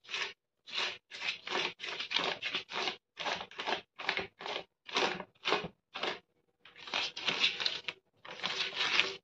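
Silicone brush spreading oil over a woven plastic sheet, in over a dozen quick brushing strokes followed by two longer stretches of brushing near the end.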